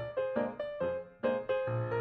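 Background music: a gentle piano melody with a bass line, notes falling every quarter to half second.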